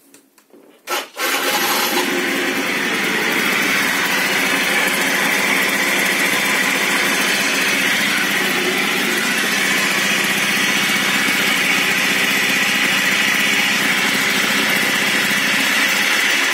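Yamaha scooter engine starting about a second in and running steadily with a continuous noisy whirr from the drive: the intermittent noise the owner complains of, which sounds much like a bearing noise.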